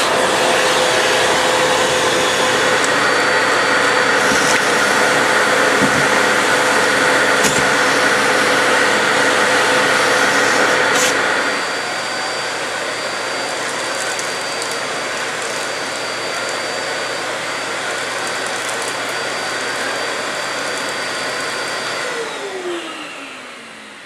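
Dyson DC05 cylinder vacuum cleaner running, a steady rush of air with a whine in it. A little under halfway through it turns noticeably quieter. Near the end the motor cuts out and winds down with a falling whine.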